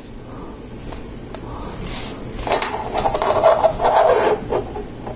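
Hands handling LEGO Technic plastic parts and a sticker: a few light clicks, then about two seconds of soft rubbing and scraping in the middle.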